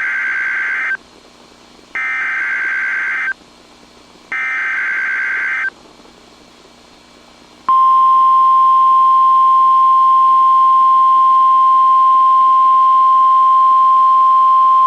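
Emergency Alert System SAME header on NOAA Weather Radio: three bursts of warbling digital data tones, each just over a second long and about a second apart. About eight seconds in, the steady single-pitch NOAA Weather Radio alert tone starts and holds. It signals that an emergency message, here a tornado watch, follows.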